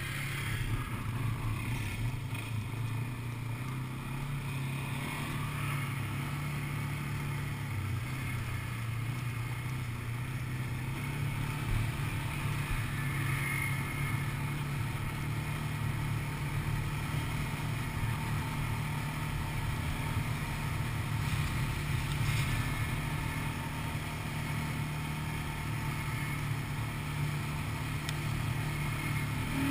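Quad bike (ATV) engine running at a steady pace while riding along a dirt track, a low, even drone.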